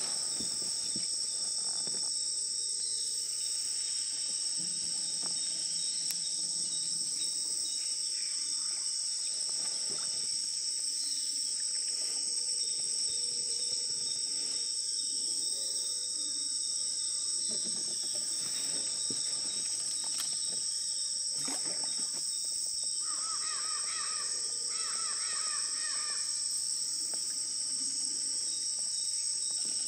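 Insect chorus holding a steady high-pitched drone on two pitches. A little over two-thirds through, a bird calls a quick run of repeated notes. There are occasional faint knocks.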